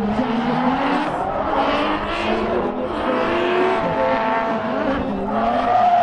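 Two drift cars sliding in tandem: their engines rev hard with pitches rising and falling as the throttle is worked, over the noise of rear tyres spinning and smoking. One engine's note climbs near the end.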